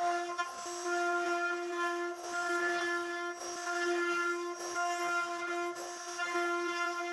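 CNC router spindle whining at a steady high speed while its bit cuts into wood, with small dips in the tone as the cut loads it.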